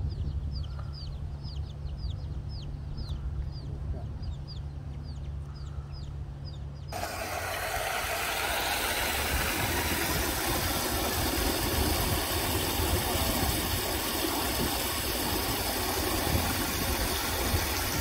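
Small birds chirping in quick, short, high notes over a steady low hum. About seven seconds in, this gives way to a loud, steady rush of water pouring from a stone channel outlet under a metal grate.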